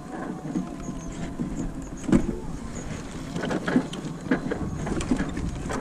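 Electric mobility scooter driving over rough grass: its motor hums steadily, and the scooter knocks and rattles several times as it jolts over the bumpy ground.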